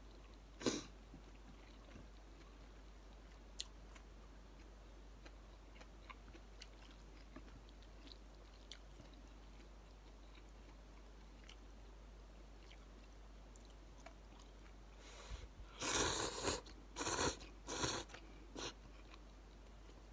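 A person eating instant ramen noodles: faint chewing and small mouth clicks, then four or five loud slurps of noodles in quick succession near the end.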